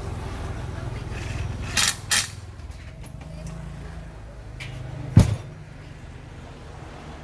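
Metal parts and tools being handled in a workshop: two sharp clinks about two seconds in and a heavier knock a little past five seconds, over a low steady hum.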